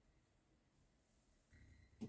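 Near silence: faint room tone, with a soft low rumble in the last half second.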